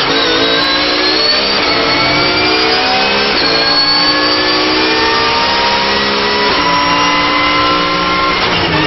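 Porsche 911 GT3 Cup race car's flat-six engine at full throttle, heard from inside the cockpit. Its pitch climbs steadily and drops sharply at each upshift, the clearest shifts a third and two-thirds of the way through. Near the end the revs fall as the driver lifts off.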